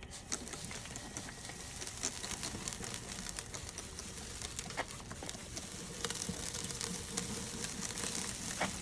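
Charcoal kettle grill sizzling and crackling as food cooks on the rotisserie over the coals: a steady hiss with many irregular small pops.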